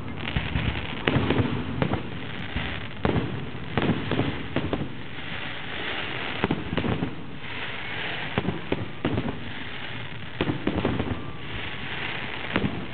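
Aerial fireworks shells bursting in quick, irregular succession, a dozen or more sharp bangs, over a continuous hissing crackle from the glittering stars.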